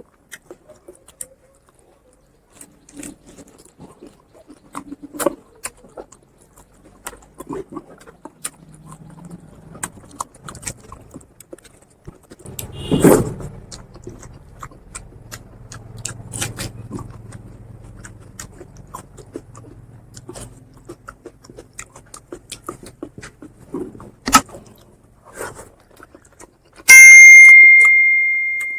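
Eating at close range: a string of small clicks, smacks and crackles from chewing and handling food on metal dishes, with a heavier knock about halfway through. Near the end, a sudden loud metallic clang rings on in one clear tone and fades over about two seconds.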